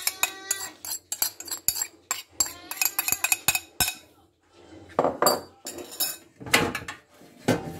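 A metal spoon scraping and tapping against a ceramic dish and a cooking pot: a quick run of clinks, some of them ringing briefly, then a few heavier knocks in the second half after a short pause.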